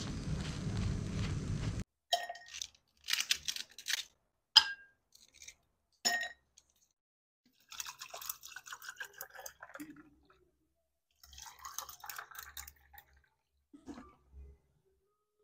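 Wooden skewers clicking and scraping against a takoyaki pan as the balls are turned, in scattered taps with a brief ring and two short runs of scraping. A steady rushing background noise fills the first couple of seconds, then cuts off suddenly.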